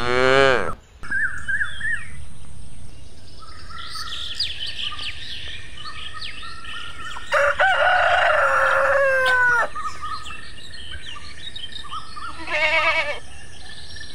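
Farm animal sounds: a rooster crowing loudly once about seven seconds in, lasting about two seconds, over scattered bird chirps and clucks. A short quavering bleat comes near the end.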